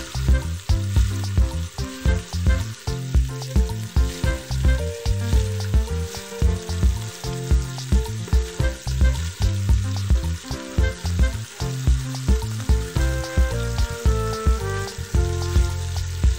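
Background music with a steady bass beat, over chicken, onions and peppers sizzling in oil in a steel pot.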